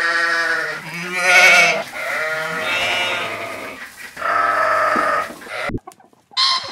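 Sheep bleating: several long, wavering bleats one after another. They stop near the end, where a short bird call starts.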